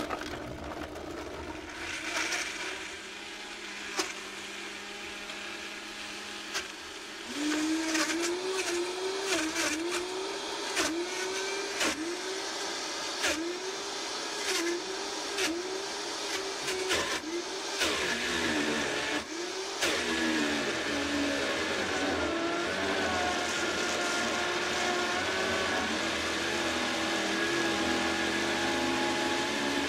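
Vitamix 5200 blender crushing frozen strawberries and yogurt: the motor starts at low variable speed and steps up to high about seven seconds in. For the next dozen seconds the motor's pitch dips and recovers about once a second, with frozen chunks knocking against the container, as the tamper pushes the ingredients into the blades. It then settles into a steadier whir as the mixture turns smooth.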